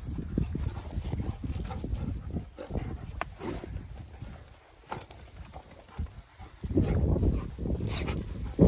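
Several Dalmatians milling and scuffling about on rough grass, with irregular thuds and rustles of paws and bodies. A louder low rumble sets in near the end.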